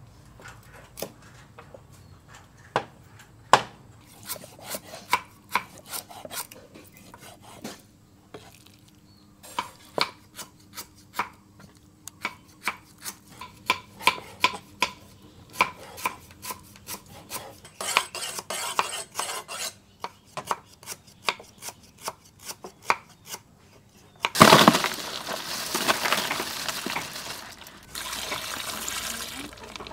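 Knives chopping on wooden cutting boards, a long run of irregular sharp chops. Near the end, a loud stream of water pours into a plastic bowl of crabs and ice.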